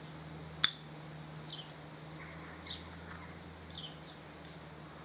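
A single sharp metallic click of a steel pick tool working a piston seal out of an aluminium brake caliper, followed by short high falling chirps, like a small bird's, repeating about once a second over a low steady hum.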